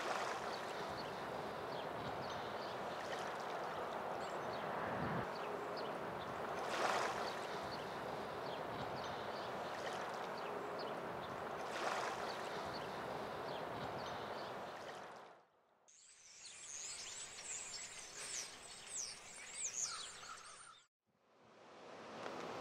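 Steady wash of small waves lapping against rocks and shore, swelling twice, about seven and twelve seconds in. After a brief cut-out comes a few seconds of high, crackly fizzing water, then a second short gap.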